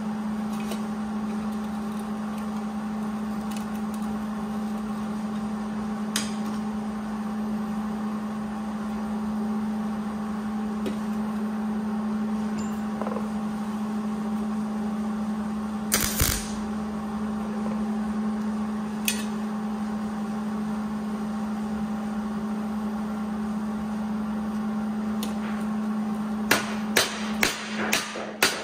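A steady hum runs under everything. About halfway through, a MIG welder tacks the rusty sheet-steel headlight bucket in one short half-second burst. Near the end comes a quick run of hammer taps ringing on the sheet metal.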